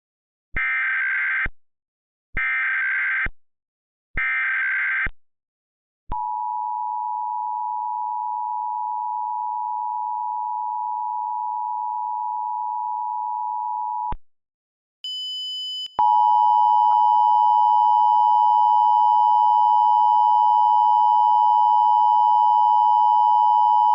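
Emergency Alert System tones: three short bursts of SAME header data, then the two-tone attention signal (853 and 960 Hz) held for about eight seconds. After a short gap a high steady tone starts, and a second, louder two-tone attention signal sounds along with it to the end.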